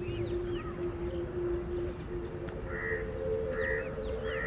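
Wild birds calling, with many short high chirps and three short harsh calls in the last second and a half, over a steady low hum.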